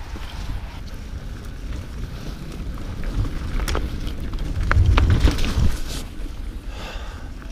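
29er mountain bike rolling over snow-covered singletrack, with wind rumbling on the microphone and the tyres and bike rattling over the ground. It gets louder about halfway through, with a few sharp knocks from the bike over bumps.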